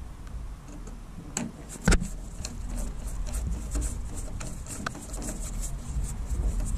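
Screwdriver turning out a screw on a vending machine door's lock assembly: a louder metal click about two seconds in, then a quick run of small ticks and scrapes of metal on metal.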